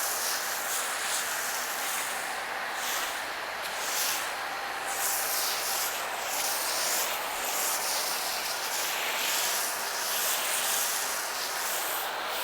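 Foam cannon on a pressure washer spraying thick soap foam: a steady hiss of pressurised spray that swells and fades in its highest range as the jet is swept.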